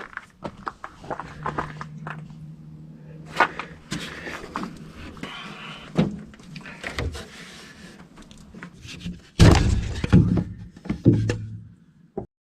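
Irregular knocking and clattering of hard objects being handled, with a run of loud heavy thuds about nine seconds in.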